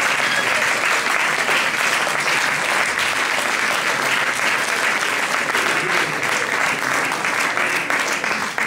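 Audience applauding steadily, a dense, even clatter of many hands clapping at once.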